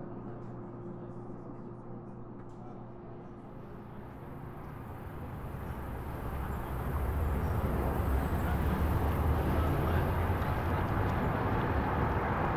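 A low steady hum gives way, swelling in over the first half, to loud, steady road traffic noise with a deep rumble.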